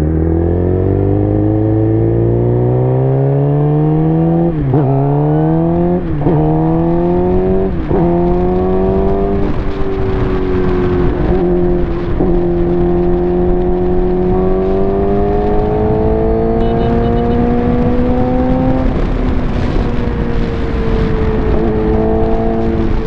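Suzuki GSX-R's inline-four with an aftermarket exhaust, pulling under way. The revs climb steadily, then three quick upshifts come about five, six and eight seconds in, each dropping the pitch before it climbs again. After that it settles to a nearly steady cruise.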